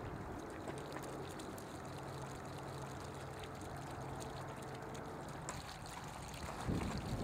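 Water from a garden hose spraying and splashing steadily onto an aircraft EFIS display unit and the gravel around it, in a water-spray environmental stress test. A louder low bump comes near the end.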